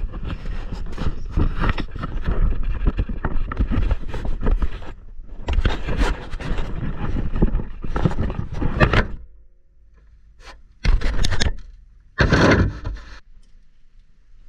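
Rustling and scraping as someone moves about in an attic, the hand-held camera jostling and rubbing, in long stretches through the first nine seconds, then two short bursts a second apart.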